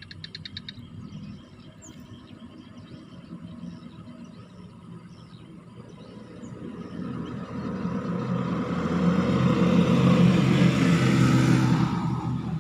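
A motor vehicle passing on the road, its engine and tyre noise growing over several seconds, loudest about ten seconds in, then dropping off quickly near the end.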